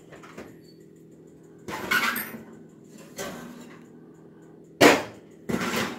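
Oven door opened and a heavy cast iron Dutch oven lifted out of the hot oven: scraping and metal knocks, the loudest a single sharp clank about five seconds in, followed by a short rough scrape.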